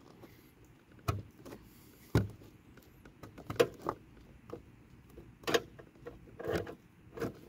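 Scattered knocks and scrapes, about six, from a hand working a backup camera cable through a freshly drilled hole in a car's plastic trunk panel above the license plate.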